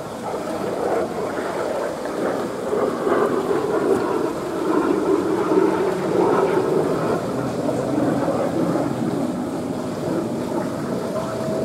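Steady rush of running water in an American beaver's pool, with a thin steady tone coming in near the end.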